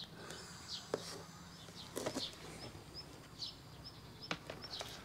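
Small birds chirping, many short high chirps repeated throughout. A few faint knocks and handling sounds come from a plastic plant tray being lifted and put down on a concrete ledge.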